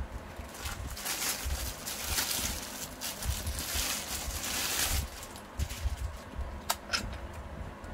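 Rustling of packaging as an unboxed item is handled, followed by a couple of sharp clicks near the end.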